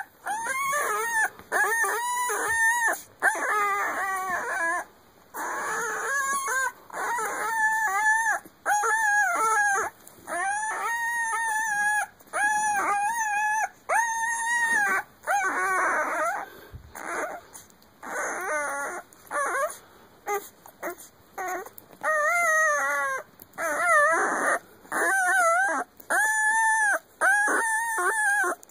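Newborn male puppy whining: a long series of high, squeaky cries about one a second, each rising and then falling in pitch.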